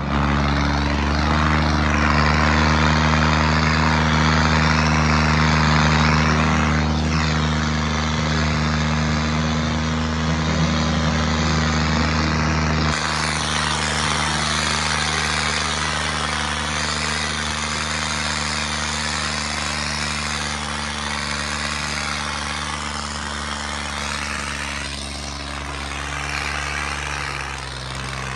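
Tractor diesel engine running steadily at high revs, a constant drone; its tone shifts abruptly about 13 seconds in.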